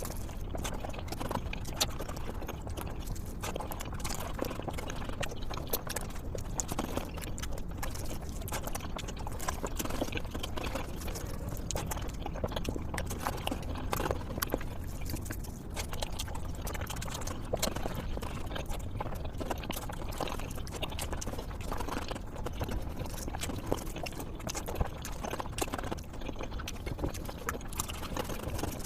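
Close-miked eating sounds: a person chewing mouthfuls of egg curry and rice, with wet smacking and many small mouth clicks throughout.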